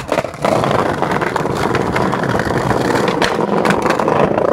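Skateboard wheels rolling over brick and concrete paving: a steady, gritty rumble that starts about half a second in after a couple of knocks, with scattered clicks from the rough surface.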